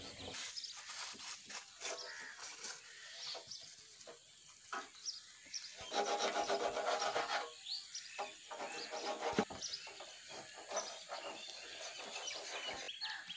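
Rural outdoor ambience of birds chirping, with a louder pitched call lasting about a second and a half around the middle.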